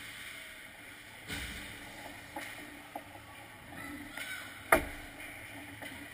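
Ice hockey play near the net: skate blades scraping the ice under a steady rink hiss, with a few light stick knocks and one sharp, loud crack about three-quarters of the way through.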